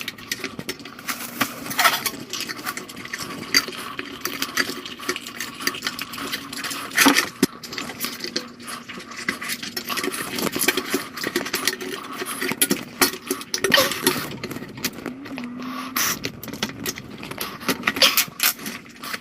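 A scooter tire being worked onto its wheel rim by hand. There are irregular clicks and knocks of tools and metal, rubber scraping, and a few short squeaks.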